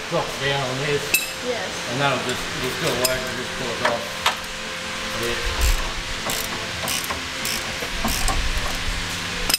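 A ratchet wrench clicking, with metal tools knocking and clinking irregularly, as a bolt on a vehicle's rear suspension is worked.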